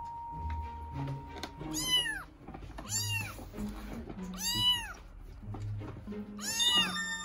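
A kitten meowing four times, each a short high call that rises and then falls in pitch, over background music.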